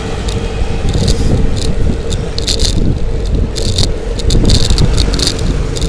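A bicycle ridden at speed, with a constant low rumble and a steady hum under repeated bursts of light rattling clicks from the bike.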